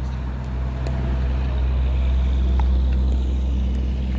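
A truck's engine running on the nearby road: a steady low drone that swells about the middle, with a few sharp pops of paddles striking the pickleball.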